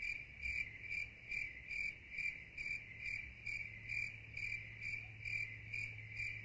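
Cricket chirping: one high note repeating evenly about twice a second, over a steady low hum.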